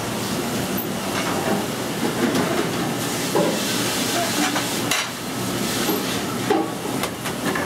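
Pasta in sauce sizzling in a sauté pan on a gas range, a steady noise throughout, with a few sharp knocks and clinks of kitchen utensils.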